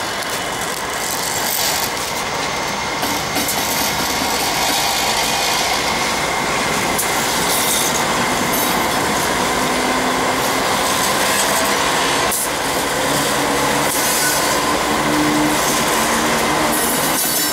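Three SSR diesel-electric locomotives pulling a loaded coal train away under power, passing close by: a steady, loud locomotive engine drone mixed with wheel and rail noise.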